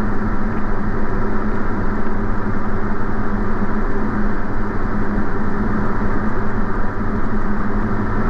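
Diamond DA40's piston engine and propeller droning steadily in the cockpit, heard through the headset intercom with the highs cut off.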